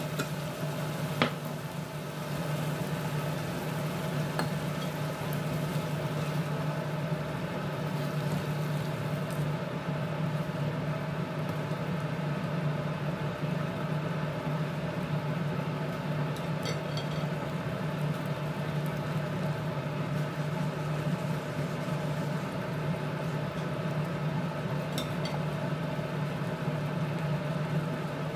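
Peppers, onions and tomato sauce sizzling in a frying pan, with a spatula stirring and clicking against the pan now and then, the loudest click about a second in. A steady low hum runs underneath.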